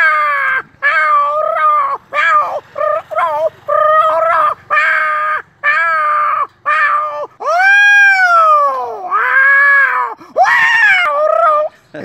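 A man's voice imitating a tomcat and a female cat mating: a string of short yowls and wails, with one long yowl that rises and then falls about eight seconds in.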